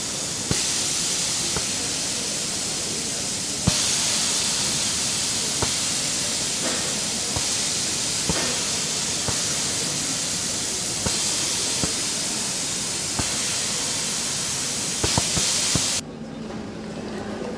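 Compressed air hissing steadily through the pneumatic tubes and valves of an inflatable structure driven by air muscles, with sharp valve clicks every second or two. The hiss gets louder about a quarter of the way in and cuts off suddenly near the end.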